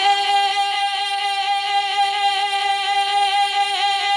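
A male naat reciter holding one long sung note, steady with a slight waver, without instruments or percussion.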